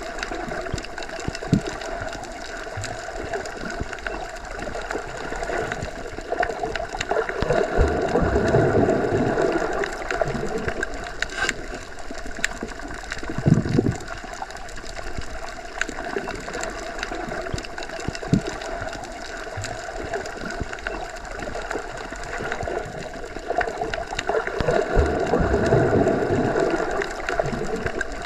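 Underwater ambience as heard while submerged: a steady, muffled water rush with a low hum. It swells twice, about a quarter of the way in and again near the end, with a brief low thump about halfway and scattered faint clicks.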